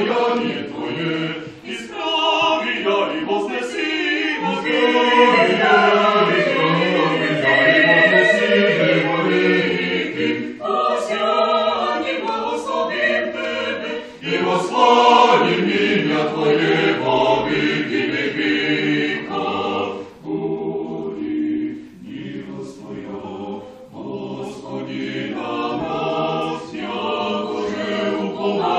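Mixed choir of men's and women's voices singing Orthodox church music a cappella, in phrases with short breaths between them. The singing grows softer about two-thirds of the way through.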